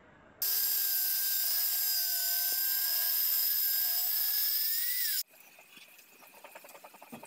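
Bosch handheld circular saw running through a long pine board: a loud, steady whine that starts abruptly about half a second in, rises slightly in pitch just before it cuts off near five seconds. After it, quieter knocking and rattling of wooden boards being handled.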